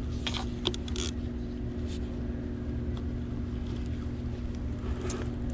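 Steady low mechanical hum with a constant pitched drone, with a few brief clicks and rustles about a second in.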